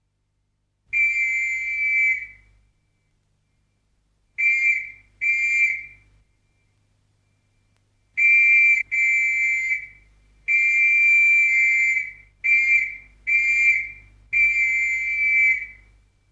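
A high whistle blown in nine steady blasts at about the same pitch. Long single blasts alternate with quick pairs and a run of short ones.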